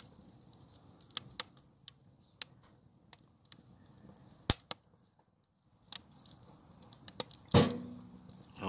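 Wood fire crackling in a sheet-steel tent stove, with irregular sharp pops and ticks. Near the end comes one louder sudden pop with a brief ring, which the owner takes for the hot steel side of the stove buckling a little.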